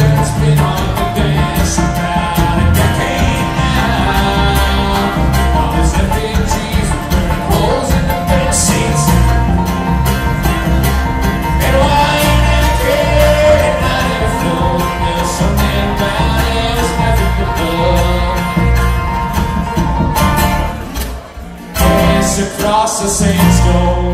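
Bluegrass string band playing live: banjo rolls, acoustic guitar, mandolin and upright bass. The band drops almost out briefly about three seconds before the end, then comes back in together.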